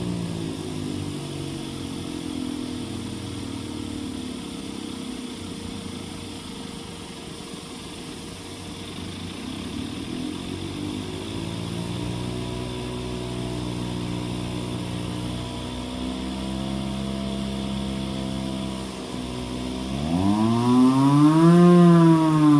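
Hand-crank siren run with a blower pushing air into it, making a motor-driven wail. The pitch falls away at first, rises again about halfway and holds steady, then sweeps sharply up near the end and starts to fall.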